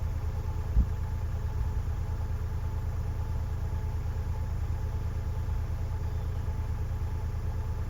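An engine running steadily with an even low pulse, and a single thump about a second in.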